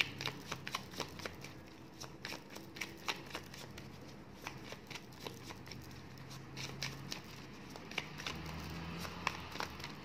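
Deck of tarot cards shuffled by hand: a run of many quick, irregular soft clicks as the cards slip and tap against each other.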